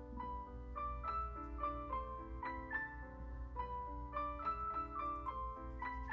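Background piano music: a gentle melody of single notes, two or three a second, over held lower notes.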